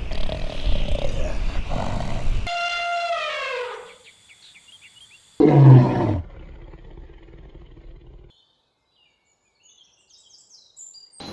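Several animal calls cut one after another: a rough growling sound, then a long pitched call sliding down in pitch, then a short, loud, low roar falling in pitch. Near the end come a few faint high bird chirps.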